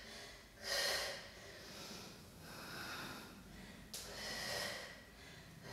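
A woman breathing out hard in three faint, breathy exhales, the middle one softest, with the rhythm of an exercise done under exertion. A brief light tap comes just before the last breath.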